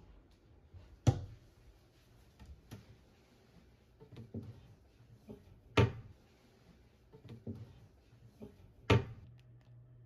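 Wooden cabinet doors being opened and shut by hand: a series of wooden knocks and clacks, with three sharp loud ones about a second in, near six seconds and near nine seconds, and softer knocks between.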